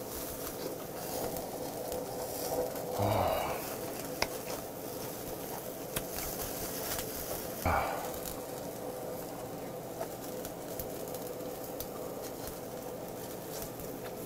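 Chicken skewers sizzling over a charcoal grill, with scattered sharp crackles as fat drips onto the coals and flares, under a steady faint hum. Two brief louder vocal sounds from the eater come about three seconds in and just before eight seconds.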